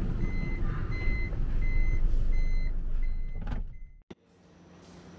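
A vehicle's repeated high warning beep, about one and a half beeps a second, over a low engine and traffic rumble. It all cuts off about three and a half seconds in, leaving a faint steady hum.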